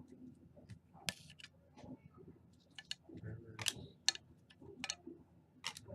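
Trading cards and their packaging being handled: a handful of scattered sharp clicks and short rustles, with one longer rustle about a second in.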